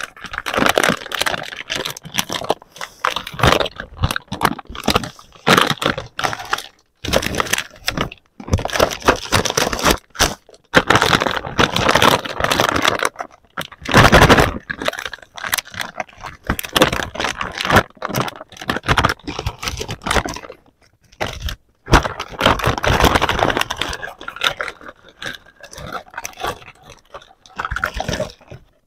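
Clear plastic wrapping crinkling and small plastic toy pieces clattering as they are handled, in irregular spells with a few short pauses.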